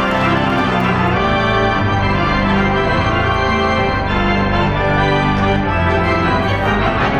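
Organ-sounding keyboard music, a run of held chords over a bass line that changes note every second or so, loud and steady.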